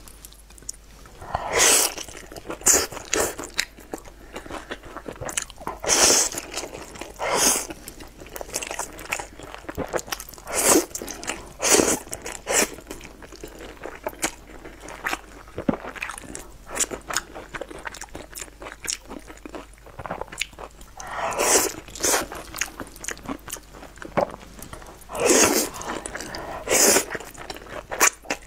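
Close-up eating sounds of saucy wide flat noodles: loud slurps every few seconds, with wet chewing between them.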